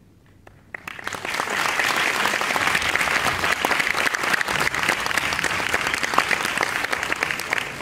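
Theatre audience applauding at the close of a sung musical number. The clapping breaks out about a second in after a brief hush and stays dense and steady.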